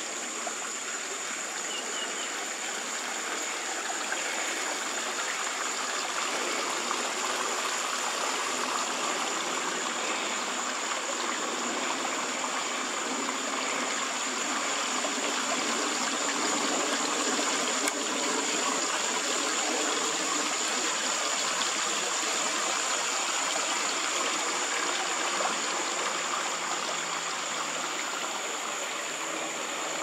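Small backyard waterfall: water trickling and splashing steadily down a short rock-lined stream into a garden pond, with a steady high-pitched whine above it.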